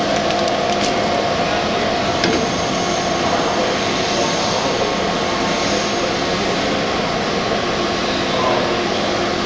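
IKA MF 10 micro fine grinder's motor running steadily: a loud, even hiss with a steady hum and whine of several tones. There is a single light click about two seconds in.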